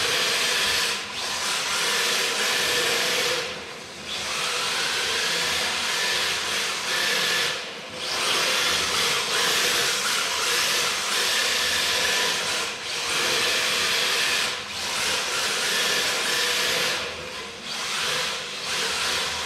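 MST radio-controlled drift car running on a tiled floor: its electric motor whines while the hard drift tyres hiss as it slides. The sound comes in surges and drops out briefly several times, with a rising whine about five seconds in.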